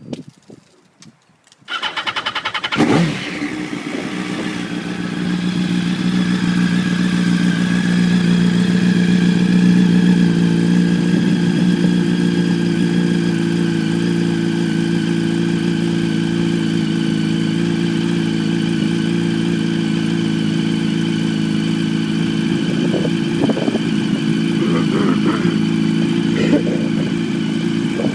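2006 Yamaha R1 sport bike's inline-four engine with an Arata full titanium exhaust: a few light clicks, then the starter cranks and the engine catches about three seconds in with a brief rev. It then settles into a steady idle while warming up.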